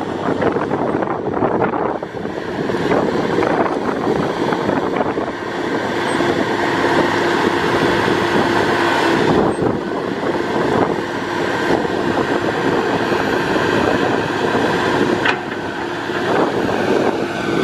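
Komatsu PC300LC excavator's six-cylinder turbo diesel engine running steadily, with a faint tone that comes and goes over its noise.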